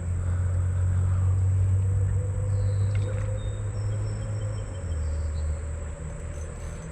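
Outdoor ambience: a steady low rumble, with faint high-pitched animal calls around the middle.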